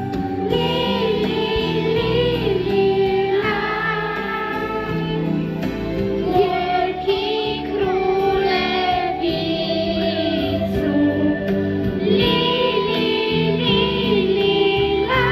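A group of children singing a Christmas carol together over a steady instrumental accompaniment.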